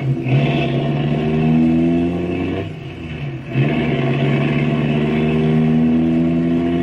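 Car engine sound effect, pulling away and accelerating with its pitch slowly climbing. It eases off briefly about three seconds in, then picks up and climbs again.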